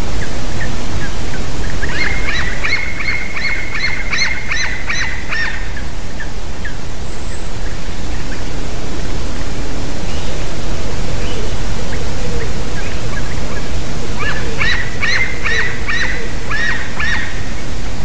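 A young eagle (eaglet) calling off camera: two runs of sharp, high call notes repeated several times a second, one a couple of seconds in and one near the end, each lasting about three seconds. Both runs sit over a steady loud hiss.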